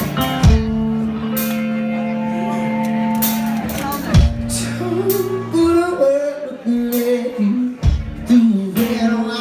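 Live rock band playing: electric guitar chords ringing out over heavy drum and cymbal hits every few seconds, with a man's voice singing from about halfway.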